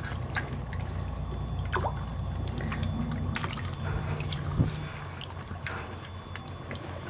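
Water splashing and dripping as hands rub mud off photographs in a tub of water. A low steady rumble underneath stops about three and a half seconds in, and there is a single thump about a second later.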